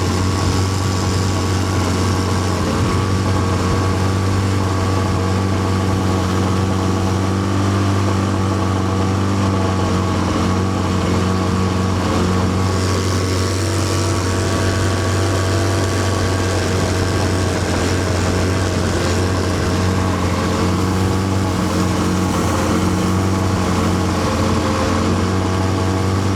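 A 15 hp four-stroke outboard motor running steadily, heard from on board the boat as an even, constant drone. This is the warmed-up motor that the owner says starts missing at high revs once it is warm.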